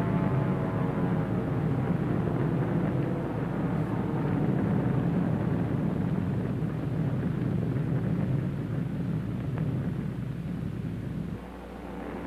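Propeller airplane engine droning steadily in flight, dropping away shortly before the end.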